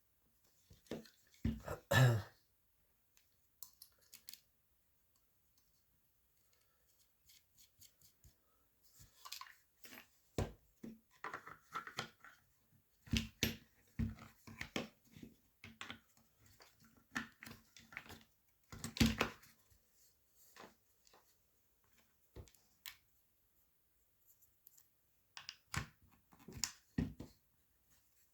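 Hands handling and fitting parts and screws of a paintball marker's receiver: scattered clicks, taps and light knocks with quiet gaps between, the loudest about two seconds in and again about two-thirds through.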